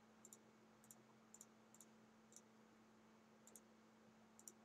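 Faint computer mouse clicks: short, sharp clicks scattered singly and in quick pairs, about eight groups in all, over a quiet room background.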